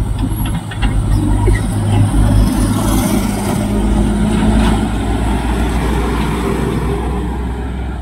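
Heavy tipper truck's diesel engine running as it drives past, a deep steady drone.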